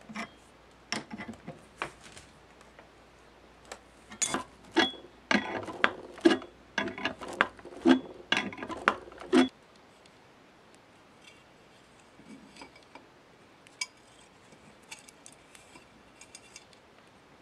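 Metal clicks and clinks of an adjustable wrench working a bearing puller, pulling a ball bearing off the armature shaft of a Hitachi electric polisher. The clinking comes thick and fast in the middle and stops abruptly about nine and a half seconds in, leaving only a few faint handling clicks.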